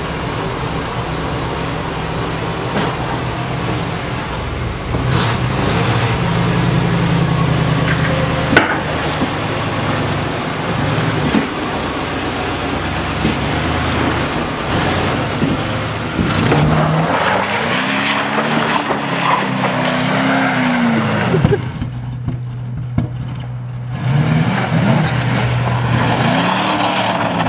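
Cadillac 4.9 L V8 engine revving hard again and again while the car spins its wheels and slides through mud and snow. The engine pitch rises and falls several times, most plainly in the second half.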